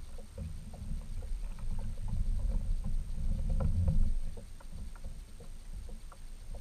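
Small waves lapping and slapping against a plastic sit-on-top kayak hull, with a low uneven rumble and scattered small knocks and ticks; louder for the first four seconds, then quieter.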